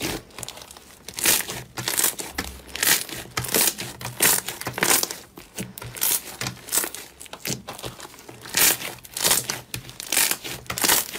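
Large mass of yellow slime being pressed, kneaded and stretched by hand, giving an irregular series of short crinkly, tearing noises, several a second.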